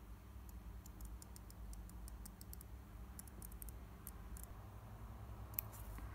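Faint, irregular light clicks and ticks from scissors and small cut paper strips being handled, with one slightly sharper click near the end, over a low steady hum.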